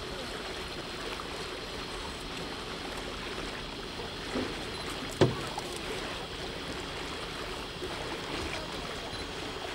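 Steady wash of water along the hull of a small boat moving through a narrow river channel, with one sharp knock about five seconds in.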